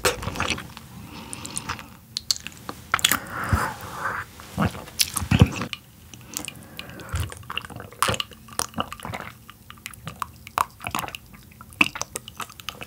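Close-miked chewing and wet mouth sounds of someone eating yellowtail, with scattered sharp clicks and smacks. In the second half come sips and swallows from a glass mug.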